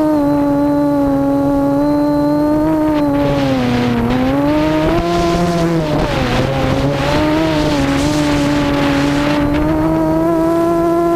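Quadcopter's Cobra 2213 2000kv brushless motors and APC 7x4 propellers humming in flight, the pitch dipping and rising with throttle changes. A rushing sound of wind comes in about three seconds in and drops away near the end.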